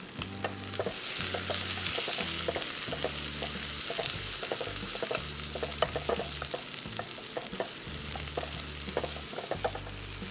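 Sliced onions sizzling in hot ghee in a heavy thick-bottomed pot, with a wooden spatula stirring and scraping them. The hiss swells about a second in as the freshly added onions start to fry.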